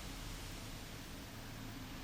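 Steady hiss of rain falling outside, easing slightly.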